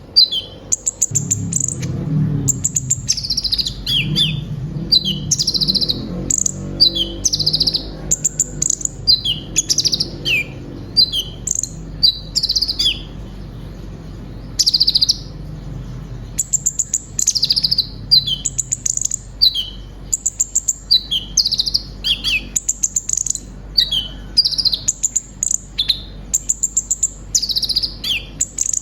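Kolibri ninja sunbird singing a long, varied song of rapid high chirps, quick up-and-down notes and trills, which keepers value as a full song rich in phrases imitated from other birds. A low rumble lies under the song for about the first half.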